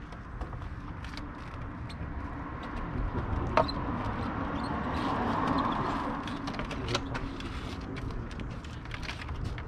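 A passing road vehicle that swells up and fades away in the middle, over a steady outdoor background, with scattered light clicks and a sharper click a few seconds in.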